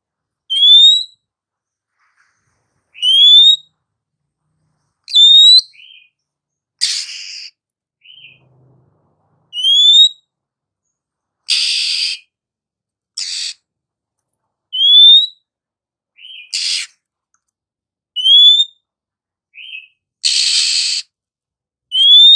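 Female oriental magpie-robin (kacer) giving a short rising whistle every two to three seconds, most followed by a brief lower note, with harsh rasping calls between them about five times.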